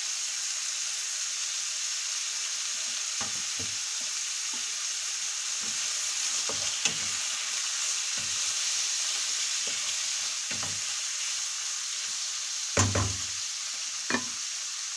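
Diced pork belly and garlic sizzling steadily in oil in a non-stick wok. A wooden spatula stirs them, knocking and scraping against the pan now and then, with the loudest knocks a couple of seconds before the end.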